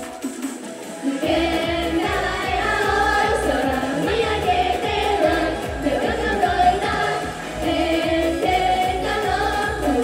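Live idol-pop song with singing over a steady beat; the bass and drums drop out for about the first second, then the full backing comes back in under the vocals.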